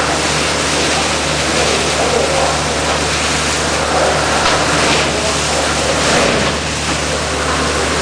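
Industrial vacuum system running: a steady, loud rush of air through the large suction hose over an even low drone.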